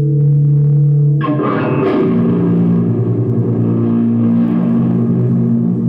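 Live experimental noise music: a steady low drone of held tones, then about a second in a sudden dense swell of layered tones and noise that keeps going.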